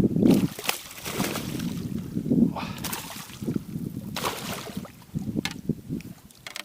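Water sloshing and splashing against a boat in several short bursts, over a low rumble.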